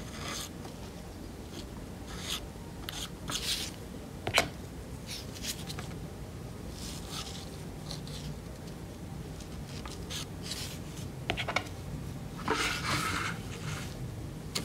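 A metal spatula spreading and scraping white filler putty across a small metal part, in short scratchy strokes with a few light clicks of the blade against the metal.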